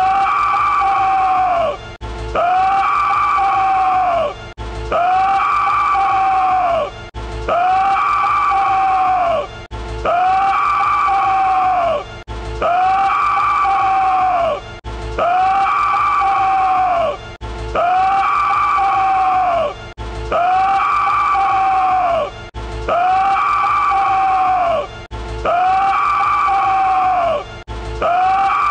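A man's long, loud scream, looped: the identical scream repeats about every two and a half seconds, about a dozen times, each rising quickly, holding, then falling off. Background music runs under it.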